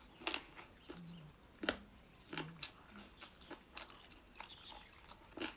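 A person chewing boneless chicken feet, with irregular wet clicks and smacks of the mouth.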